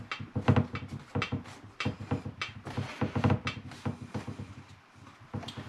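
Irregular knocks and taps of hands pressing a paper towel holder's mounting plate, backed with double-sided tape, up against the underside of a wooden kitchen cabinet. The knocks come several a second and die down near the end.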